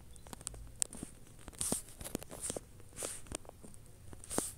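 Scattered faint clicks and a few short rustles close to the microphone: handling noise while the phone is being tapped and held.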